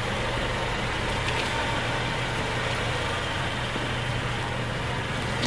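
Mercedes-Benz C300 convertible's turbocharged four-cylinder engine running steadily at idle as the car rolls slowly out of the garage.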